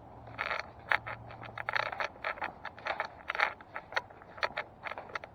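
Irregular scraping and rustling: a quick, uneven run of short scrapes and clicks, like things being handled.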